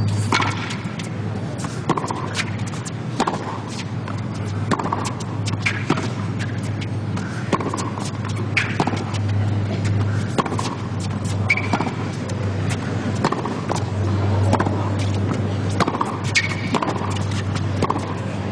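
Tennis racquets striking the ball back and forth in a long baseline rally on a hard court, a sharp pop roughly every second to second and a half. There are a couple of brief shoe squeaks and a steady low hum underneath.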